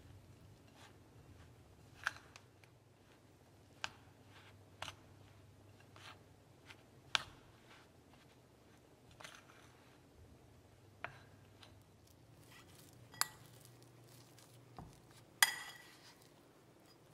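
Metal utensil knocking against the side of a glass mixing bowl while stirring crumbly flour dough: faint, irregular taps, one every second or so, with two louder clinks about seven and fifteen seconds in, the second ringing briefly.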